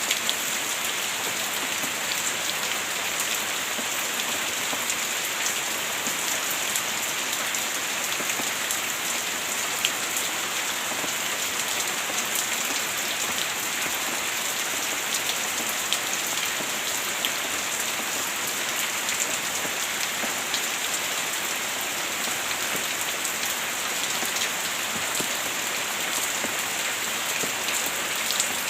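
Heavy rain falling steadily, a dense even hiss with scattered sharp drop ticks on a hard surface.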